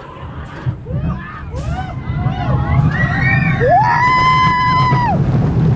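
Roller coaster riders screaming and yelling, many voices overlapping in rising and falling cries that build into one long held scream near the end, over a steady low rumble.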